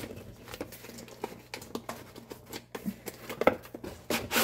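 Cardboard packaging of a mini waffle maker being handled: flaps bending and a paper insert rustling and scraping, with scattered light taps and clicks. The loudest knock comes about three and a half seconds in, and another near the end.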